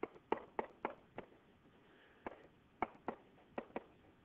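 A stylus tip tapping and clicking on a writing surface as equation figures are handwritten: about a dozen sharp, short clicks at uneven spacing, bunched in two runs with a gap of about a second in the middle.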